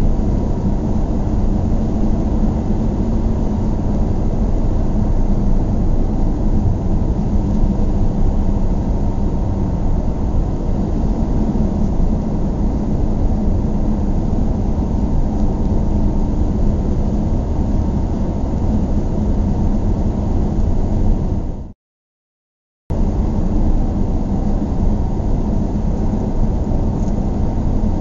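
Steady low rumble of a car being driven on city streets, heard from inside the cabin: engine and tyre noise. The sound drops out completely for about a second, about three quarters of the way through, then resumes as before.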